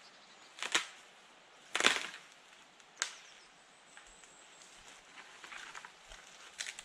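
Dry dead branches snapping: three sharp cracks in the first three seconds, the middle one the loudest and made of several quick breaks, then lighter crackling of twigs near the end.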